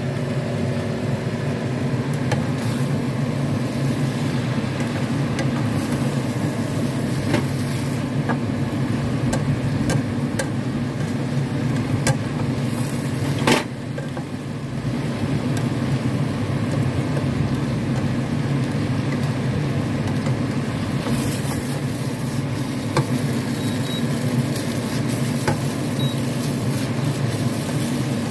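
Rice noodles and vegetables being stir-fried in a wok: chopsticks tossing the noodles and clicking against the pan now and then, with one sharp click about halfway through, over soft sizzling and a steady low hum.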